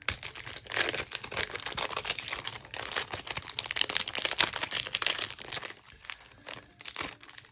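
Foil Yu-Gi-Oh! booster pack wrapper torn open by hand, crinkling and crackling densely for about six seconds, then thinning to a few small crinkles near the end.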